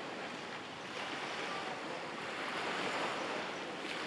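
Ocean surf: a steady hiss of waves washing in, swelling about a second in and again near three seconds.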